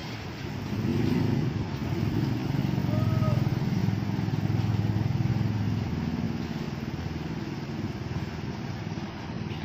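Small motorcycles riding past close by on a wet road. Their engines are loudest in the first half and fade after about six seconds, over the steady hiss of rain and wet traffic.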